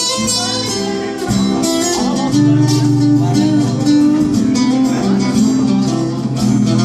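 Acoustic guitar strummed and plucked in an instrumental passage of a Turkish folk-rock song, with sustained low accompanying notes.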